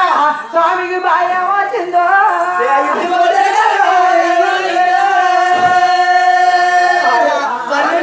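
A group of men singing a folk song together, with one long held note in the middle.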